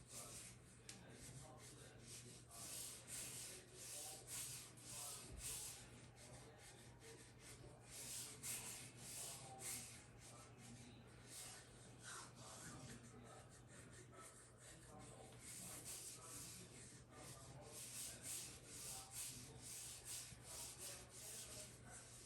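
Near silence: a faint, uneven rustling hiss over a low steady hum.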